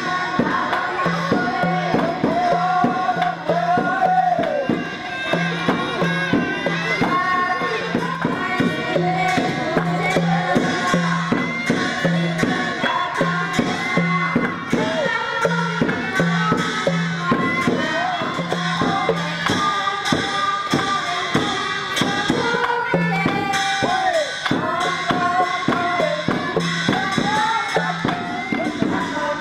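Folk music with a steady low drum beat, a wavering melody line and bright, clicking percussion. The drum drops out for a few seconds past the middle, then comes back.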